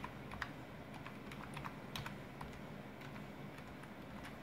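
Computer keyboard typing: a quick, irregular run of faint key clicks as a password is keyed in.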